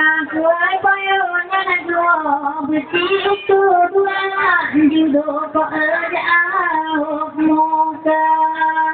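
Female voices singing a slow traditional Acehnese ceremonial song with long, wavering held notes.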